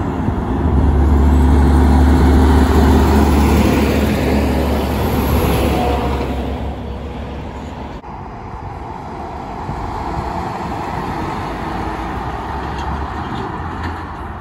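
A heavy truck's diesel engine driving past close by, a deep engine drone that swells to its loudest about two seconds in and then fades away. About eight seconds in, after an abrupt change, a steadier passing-traffic rumble follows.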